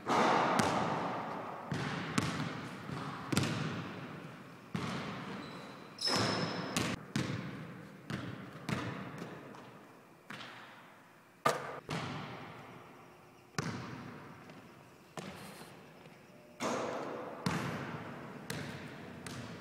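Basketball bouncing on a hardwood gym floor: a string of single, irregular bounces about a second apart, each bang ringing out in the echo of the large hall.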